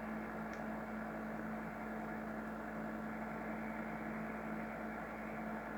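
Pot of water heating on an electric stove, a steady hum and hiss as small bubbles form before the boil.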